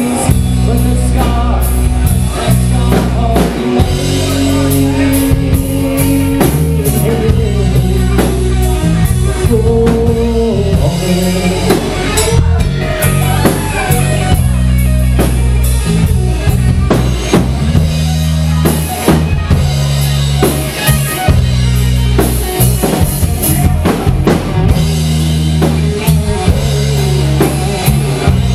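Live rock band playing an instrumental break of a power ballad: drum kit and bass keep a steady beat under sustained, gliding lead lines, most likely electric guitar.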